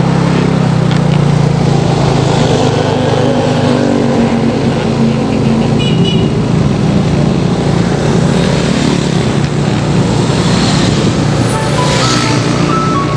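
Small motorcycle engine running steadily while riding along a road, its note falling briefly about five seconds in. Faint music comes in near the end.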